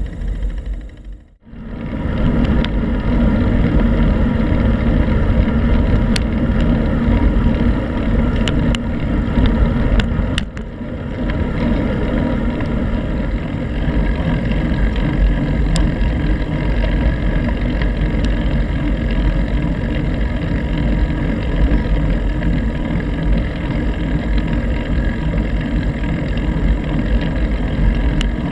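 Wind rumbling on a handlebar-mounted GoPro's microphone, with tyre noise from a bicycle rolling along a paved path and a few sharp clicks. The sound drops away briefly about a second and a half in, then returns.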